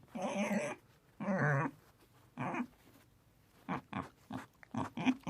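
Dog barking: three calls in the first three seconds, then a quicker run of short ones near the end.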